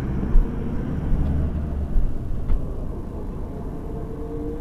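Low, steady motor-vehicle engine rumble that eases after about two seconds, with a few light knocks.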